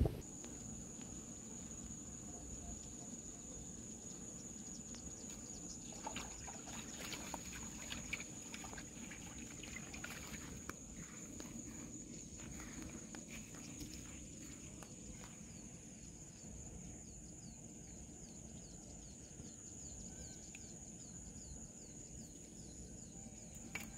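Faint rural outdoor ambience: a thin, steady, high-pitched insect trill runs throughout over a low wind rumble, with scattered small clicks and rustles of handling, most of them in the middle.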